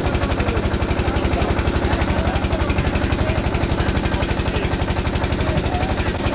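Small engine running steadily, its exhaust beating evenly at about ten beats a second over a low hum.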